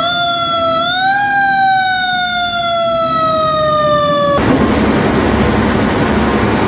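Fire engine siren: one wailing tone that rises, then slowly falls in pitch for about three seconds, and cuts off suddenly a little over four seconds in. A loud, steady rushing noise follows, from a fast boat running through water with spray.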